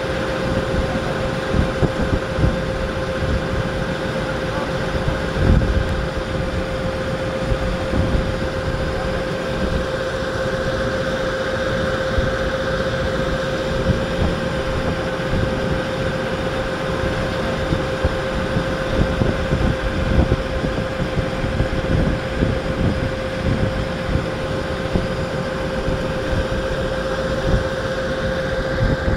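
A tour boat's engine running steadily under way, a constant hum with one held tone, and uneven low rumbling beneath it.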